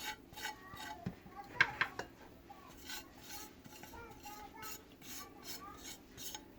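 Spoon clinking and scraping against a bowl in a quick run of light taps, with two sharper clinks just before two seconds in.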